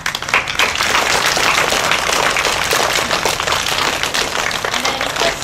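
A crowd applauding: many hands clapping together in a dense, steady patter that breaks out suddenly.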